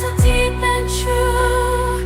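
Background music: a slow melody over held bass notes, with a deep bass sweep falling quickly just after the start.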